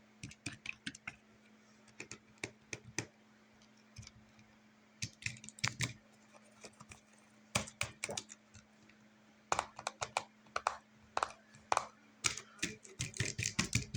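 A fidget board's buttons and switches clicked and tapped with the fingers, in quick irregular bursts like typing, busiest in the second half.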